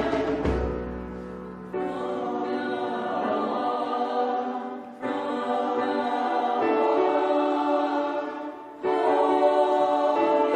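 Choir singing sustained chords in phrases, with new phrases starting together about two, five and nine seconds in.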